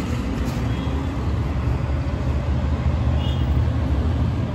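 Steady low rumble of road traffic, an even street din with no distinct events.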